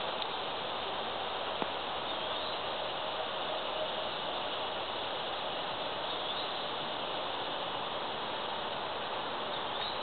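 Steady outdoor woodland background hiss, with a few faint high chirps and one small click about one and a half seconds in.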